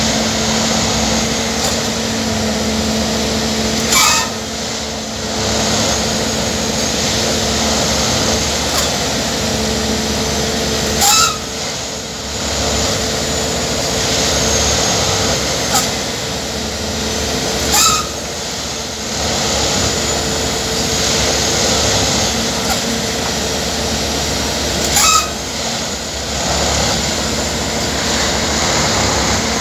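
Plasser & Theurer Unimat 08-4x4/4S track tamping machine working, its engine and hydraulics giving a steady hum. A short loud burst comes four times, about every seven seconds, and the level dips briefly after each one.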